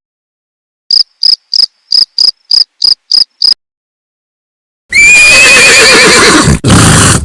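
A cricket chirps nine times in quick succession, then a horse whinnies loudly for about two seconds, its pitch wavering and falling.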